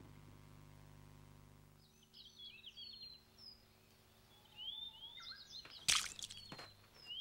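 A low steady hum fades out over the first two seconds, then birds chirp and twitter in short rising and falling calls. One sharp click stands out about six seconds in.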